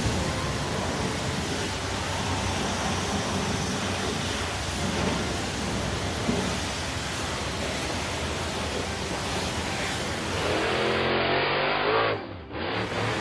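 Cartoon car-wash foam sprayer hissing steadily over a monster truck. About ten seconds in, an engine revs up over the hiss, and then the sound dips sharply for a moment near the end.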